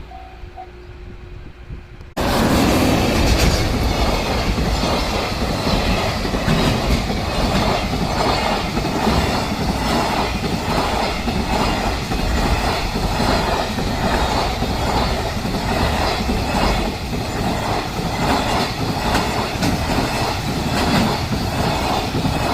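A long freight train, hauled by a JR Freight EF210 electric locomotive, passes close by. Its wheels clack over the rail joints in a steady rhythm. Just before it arrives, about two seconds in, a level-crossing warning bell rings faintly in quick pulses.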